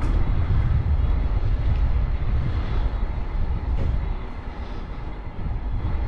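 Wind buffeting the microphone while it moves along a street, giving a steady, fluctuating low rumble.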